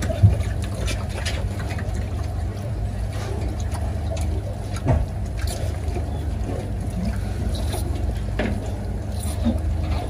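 Piglets in a pen grunting and shuffling, their hooves clicking on a metal slatted floor, over a steady low mechanical hum. Two sharper knocks stand out, one just after the start and one about halfway through.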